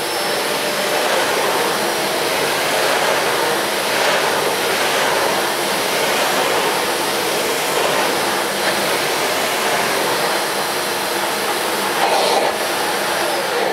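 Hoover Eco G bagged cylinder vacuum cleaner running steadily while its basic floor nozzle is pushed back and forth over carpet.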